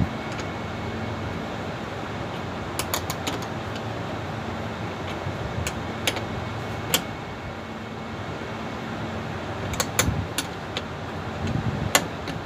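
Scattered sharp metallic clicks and taps of hand tools working on a sheet-metal air duct to free a volume damper, some in quick clusters about three and ten seconds in, over a steady mechanical hum.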